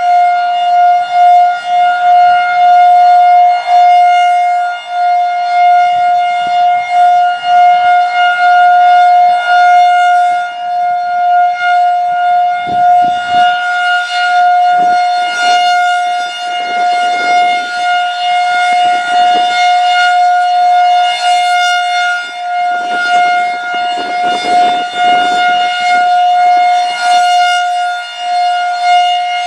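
Federal Signal 2001-DC rotating electromechanical siren sounding a steady alert tone at full speed, a high-RPM unit. The pitch holds steady while the loudness wavers.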